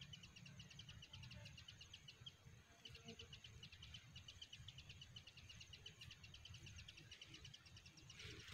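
Faint, fast, even insect chirping, about ten high-pitched pulses a second, pausing briefly about two and a half seconds in, over a low rumble, with a short rustle near the end.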